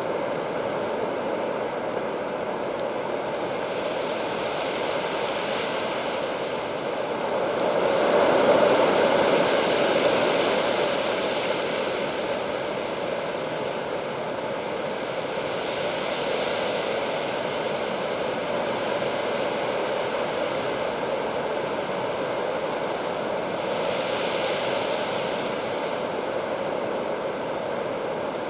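Steady rushing noise of a storm, wind and rain on the garden, swelling clearly louder about eight seconds in and again more mildly twice later.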